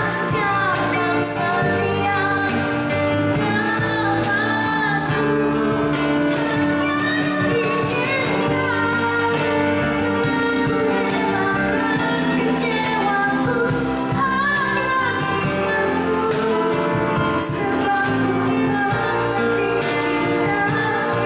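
A woman singing through a stage microphone over live band accompaniment.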